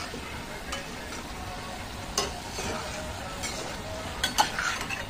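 Karanji sizzling steadily in ghee over a low flame in a steel kadhai, with a slotted steel spoon clinking against the pan several times, most sharply about two seconds in and near the end.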